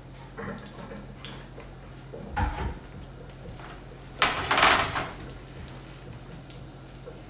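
A dull knock about two and a half seconds in, then about a second of water pouring and splashing: pasta cooking water being drained off.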